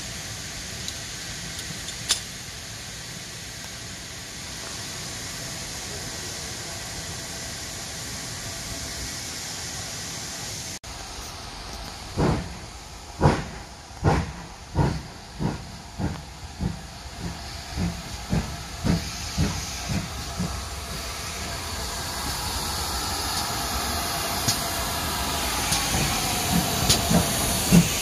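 Steam hissing steadily. About eleven seconds in, a steam locomotive starts away: its exhaust chuffs begin about one a second and quicken to about two a second, then fade under steady steam hiss. Faint beats return near the end.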